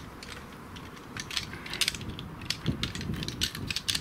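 Shock-corded metal frame poles of a folding camping chair clinking and clicking against each other as they are pulled apart and gathered into a bundle: quick, irregular light clinks, starting about a second in.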